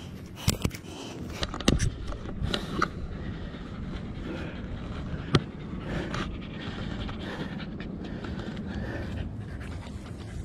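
Small white terrier panting steadily after climbing a hill. A few sharp clicks and rustles stand out in the first few seconds.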